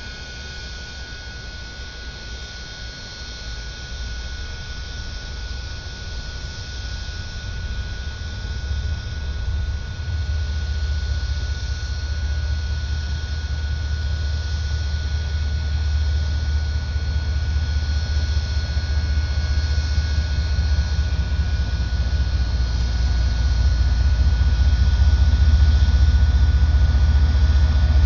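Diesel locomotives of an approaching freight train: a low engine rumble that grows steadily louder as the train draws nearer.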